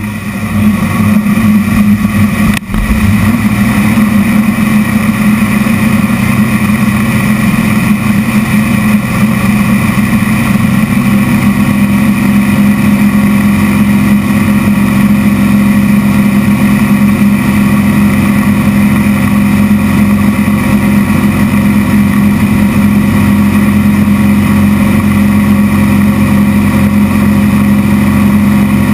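Zlin aerobatic plane's piston engine and propeller droning steadily, heard from inside the cockpit. The sound grows louder over the first second or two as power comes on.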